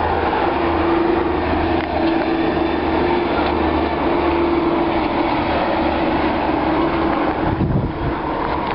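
Steady rumble of heavy traffic passing close by, with a droning tone that fades out near the end.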